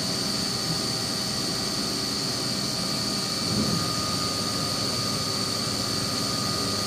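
CNC vertical milling machine running its program with the spindle turning and the tool feeding slowly toward the workpiece: a steady high whine over an even hiss.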